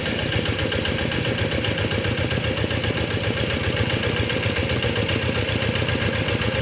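Single-cylinder diesel engine of a two-wheel hand tractor, used for puddling a rice paddy, running steadily with an even, rapid firing beat.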